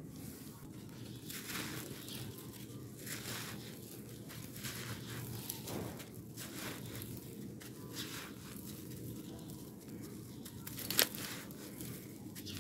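Dry, crumbly red dirt being crushed and broken up between bare hands: a steady run of gritty crunching with loose soil trickling down, and one sharper crack near the end.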